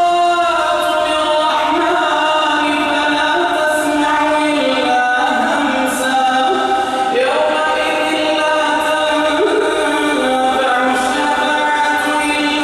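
A man reciting the Quran in the melodic, chanted tajweed style, drawing out long held notes that glide slowly from one pitch to the next.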